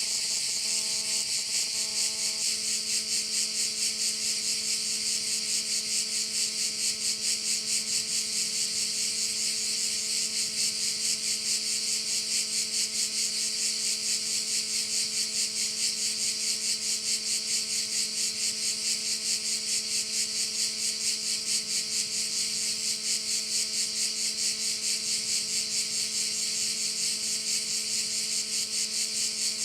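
A dense chorus of cicadas singing, a loud high-pitched buzz with a fast, even pulsing that holds steady.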